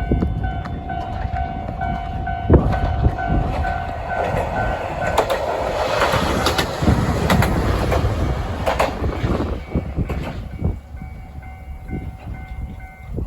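Level-crossing warning bell ringing as a Tarumi Railway diesel railcar passes over the crossing, its wheels clicking over the rail joints. The train noise swells and fades in the middle and covers the bell, which is heard again near the end. Wind buffets the microphone throughout.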